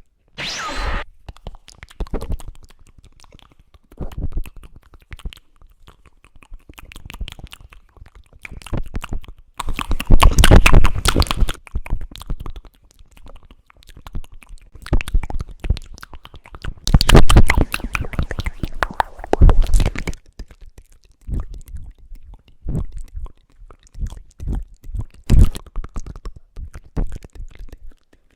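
Close-miked ASMR sounds: irregular scratching, crackling and tapping right at the microphone, with two loud, distorted stretches partway through.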